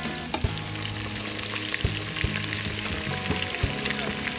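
Pieces of mullet and hake frying in hot olive oil in a stainless pot: a steady sizzle with scattered small pops.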